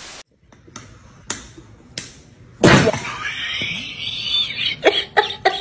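A brief static hiss at the start, then a few soft taps. About halfway through, a sudden loud spluttering squirt of ketchup from a plastic squeeze bottle onto a face, followed near the end by short vocal sounds.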